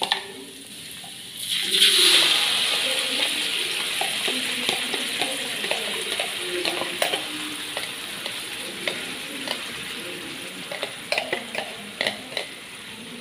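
Ground onion and tomato paste hits hot oil with ginger and garlic in a metal wok, starting a loud sizzle about a second and a half in. The frying then settles to a steady sizzle that slowly fades. Light taps and clicks near the end.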